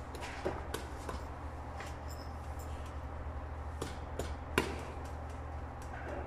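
Several sharp clicks and knocks of small metal fittings being handled on a cable termination insulator, the loudest about four and a half seconds in, over a steady low hum.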